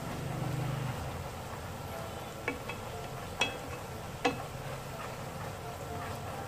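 Minced garlic and shallots frying in a deep layer of hot oil, a steady sizzle, with a few sharp clicks of chopsticks against the pan in the middle. A low hum in the first second.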